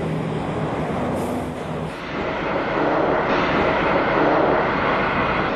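Highway traffic: heavy vehicles passing with a steady engine hum, which gives way about two seconds in to a louder, rushing noise.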